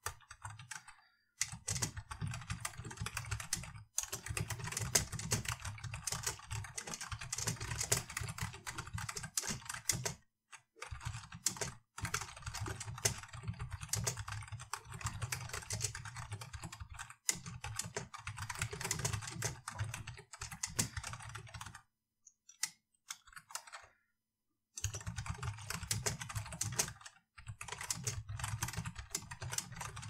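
Typing on a computer keyboard in quick runs of keystrokes, broken by short pauses. The longest pause, about three seconds, comes roughly three-quarters of the way through.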